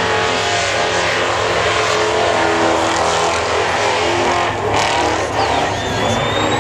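Burnout car's engine held at high revs while its rear tyres spin and smoke on the track, the pitch wavering up and down as the throttle is worked. A thin whistle-like tone falls and then rises near the end.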